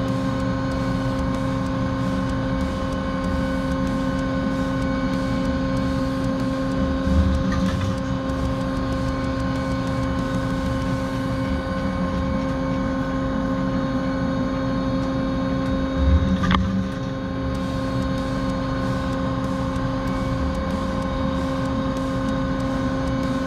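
CNC machine running while an HPX solid carbide drill cuts holes in a 4140 steel plate, with a steady hum of several held tones. Low thuds come about a third of the way in and again about two thirds in, the second followed at once by a short rising whine.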